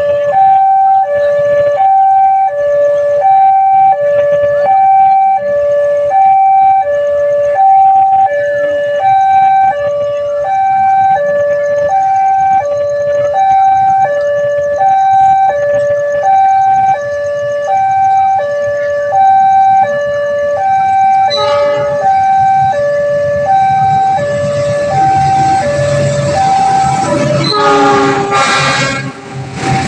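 Railway level-crossing warning siren sounding a loud, steady two-tone alarm, alternating high and low over and over to warn that a train is coming. Near the end a train's rumble rises under it and its horn sounds briefly.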